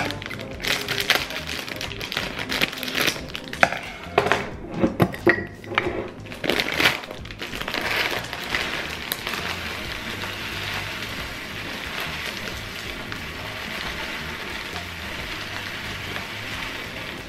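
A plastic bag of muesli crinkling and rustling as it is handled, with a few sharp clicks, then dry muesli pouring from the bag into a glass jar as a steady rustling hiss from about eight seconds in. Background music plays underneath.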